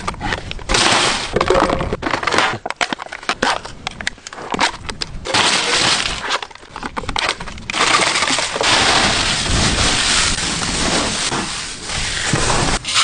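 Stacked Pringles potato crisps tip out of their tubes onto a metal tray with quick clicks and clatter. From about five seconds in comes a long, dense crackling crunch as handfuls of the crisps are crushed by hand.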